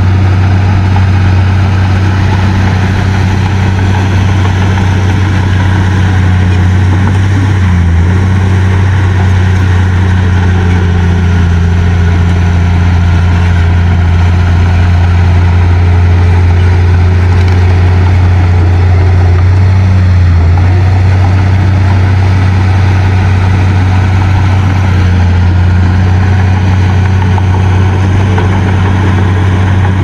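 Crawler bulldozer's diesel engine running steadily, a loud, even low hum with only slight dips around a third and two thirds of the way through.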